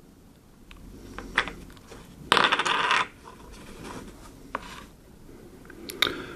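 A small hard object dropped, clattering and rattling on a hard surface for under a second, about two seconds in, amid light taps and clicks of handling small parts.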